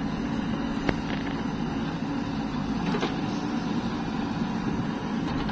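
JCB 3DX backhoe loader's diesel engine running steadily under hydraulic load as the backhoe arm dumps its bucket and swings back to dig, with one sharp knock about a second in.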